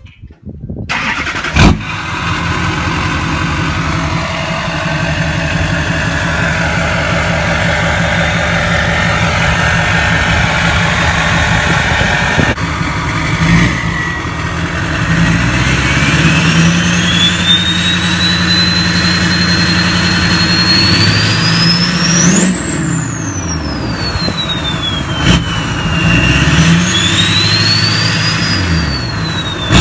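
2005 LLY Duramax 6.6-litre V8 turbo-diesel with a 5-inch straight-pipe exhaust starting up about a second in, then running with a deep exhaust note. In the second half it is revved several times, and a high turbo whistle climbs, peaks and falls with the revs.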